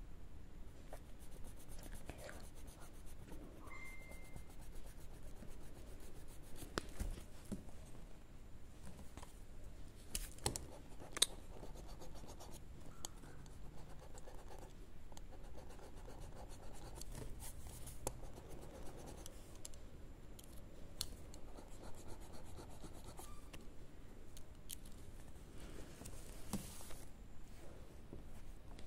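An eraser rubbing and scratching on drawing paper as pencil shading is rubbed out, in quick back-and-forth strokes, with a few sharp taps around the middle.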